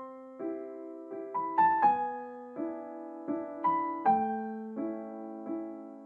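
Background piano music: soft chords struck at an even, unhurried pace, about one every 0.7 seconds, each ringing and fading before the next.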